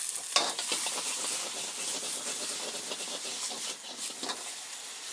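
Fried rice sizzling in a wok, with a metal ladle scraping and knocking against the wok several times. The sharpest knock comes about a third of a second in.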